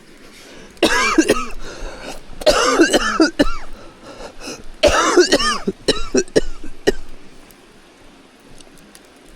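A person coughing hard in several loud fits over about six seconds, with a throat-clearing quality.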